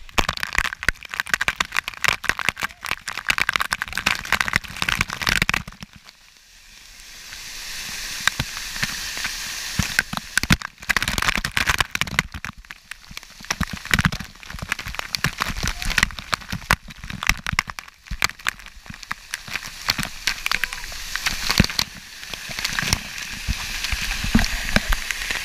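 Waterfall water pouring and splashing straight onto a handheld action camera, a dense crackling rush of drops striking the housing. It breaks off briefly about six seconds in, then resumes.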